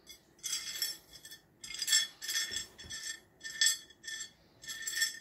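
Pieces of rough opal clinking and scraping against a ceramic plate as fingers push them around, in about six short bursts with a light ringing from the plate.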